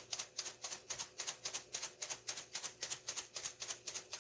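Crushed red pepper flakes being shaken out of a spice shaker: a fast, even rattle of quick shakes, about six or seven a second.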